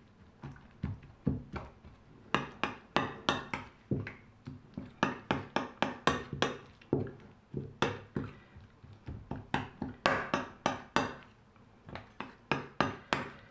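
A metal fork clinking against a ceramic plate while stirring sour cream with chopped herbs: quick, irregular taps, several a second, in runs with short pauses.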